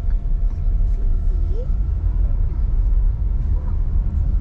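Low, steady rumble of a car's engine and road noise heard from inside the cabin of a slowly moving taxi.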